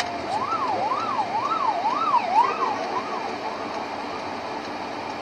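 Emergency-vehicle siren wailing up and down about twice a second, fading away after about three seconds, over steady traffic noise.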